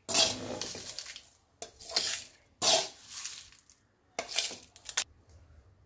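Metal spoon scraping dry-roasted grated coconut and red chillies from a non-stick kadai and tipping them into a steel mixer-grinder jar, a scoop at a time: several short bursts of rustling, scraping pours with brief pauses between.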